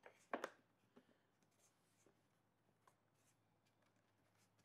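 Hands handling a leather strap against a wooden toolbox lid: one short scuffing rub about half a second in, then a few faint clicks, otherwise near silence.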